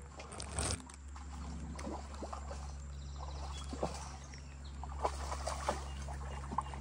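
Scattered rustling and small irregular clicks from handling a fishing rod and spinning reel among streamside grass, with a louder rustle about half a second in, over a steady low rumble.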